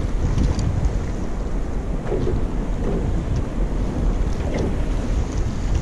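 Wind rumbling steadily on the microphone, over the wash of choppy sea waves.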